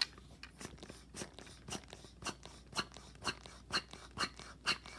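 The hand pump of a Kenner Real Ghostbusters Sludge Bucket toy being worked over and over, a short click about twice a second, as it blows slime into a bubble.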